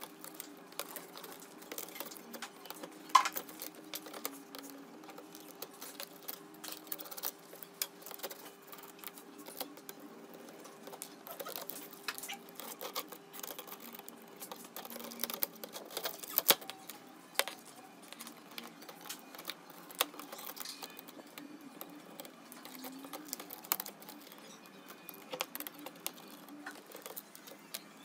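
Precision screwdriver clicking and scraping against the small screws and thin metal frame of a slim laptop optical drive as it is taken apart: irregular small metallic clicks and taps, with one sharper click about three seconds in.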